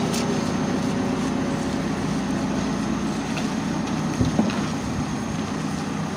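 Backhoe loader's diesel engine running steadily, with a couple of short knocks about four seconds in.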